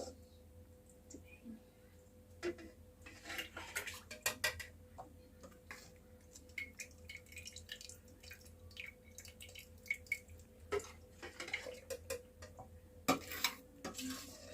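Scattered clinks, knocks and scrapes of a spoon and dishes as cooked lemon mixture is spooned into a food processor bowl, the loudest knock near the end.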